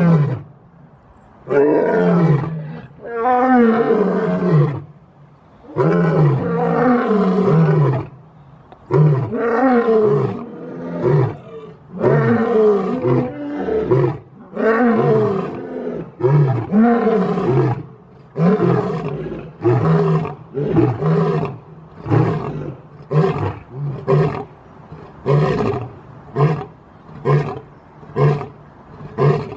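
Male lion roaring in a long bout: several drawn-out roars that each fall in pitch, then shorter grunting roars that come faster, about one a second, toward the end.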